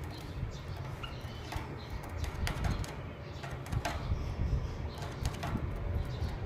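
Small cage birds, a female canary and a male white-headed munia, moving about the cage: wing flutters and light taps and clicks from perching and hopping, with a few short chirps, over a steady low rumble.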